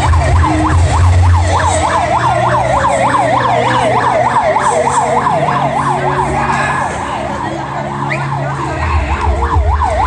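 A siren yelping, its pitch sweeping up and down about three times a second and growing a little weaker past the middle, over a low steady hum.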